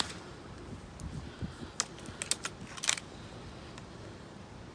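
Gamo Whisper Swarm .22 break-barrel air rifle being handled right after a shot: a handful of sharp mechanical clicks about two to three seconds in.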